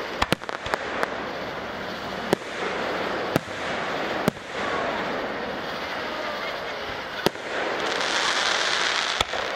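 Aerial fireworks shells bursting overhead: sharp bangs, four in quick succession in the first second, then single bangs a second or more apart, over a steady hiss of background noise that swells near the end.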